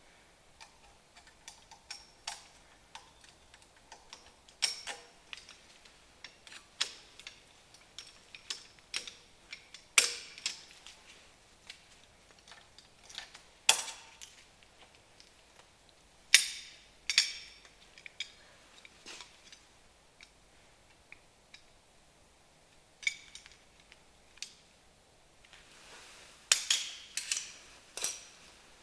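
Irregular sharp metallic clicks and clinks of hand tools and metal parts being handled during drum brake wheel cylinder work, with a few louder knocks and a quick run of clinks near the end.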